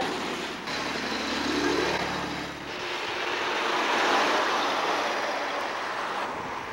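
Antique cars going by on an asphalt road: a low steady engine drone for the first couple of seconds, then a rush of engine and tyre noise from an old open touring car that swells as it passes about four seconds in and fades as it drives away.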